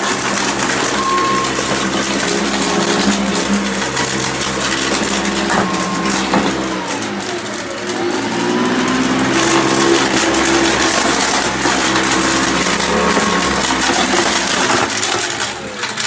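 Hoover Custom Convertible upright vacuum cleaner running loud, its motor whine dipping and recovering in pitch about halfway through, with hard debris clattering and crunching as it is sucked in and chewed up.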